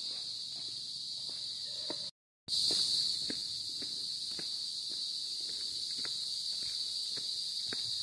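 A steady, high-pitched insect chorus with a walker's footsteps on a concrete road at an even pace. The audio cuts out completely for a moment about two seconds in.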